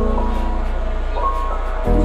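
Background music: a melody of held notes over long sustained bass notes, the bass changing to a new note near the end, with a light, evenly spaced tick above.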